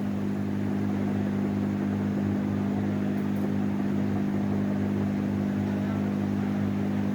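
Hot-air heat gun blowing steadily, a constant hum with airflow hiss, as it heats a phone's charging port to melt the solder and free the old port.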